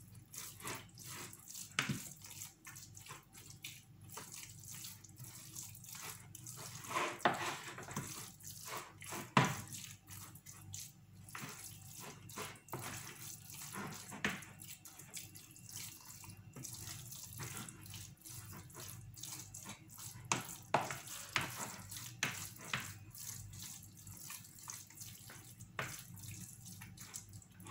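A wooden spoon stirring a moist spinach and cheese filling in a ceramic bowl: irregular wet squelching and scraping strokes, with a sharper knock of the spoon against the bowl now and then.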